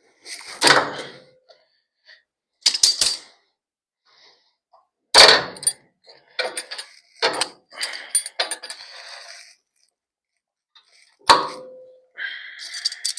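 Steel upper air-bag plate being shifted and seated against a pickup's front frame: sharp metal clanks, a run of quicker clinks in the middle, and one clank near the end that rings briefly.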